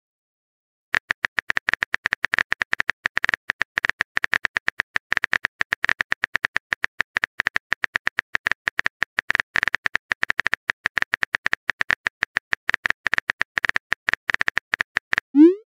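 Chat app's keyboard typing sound effect: rapid, irregular keystroke clicks as a message is typed letter by letter, starting about a second in, ending with a short rising swoop as the message is sent.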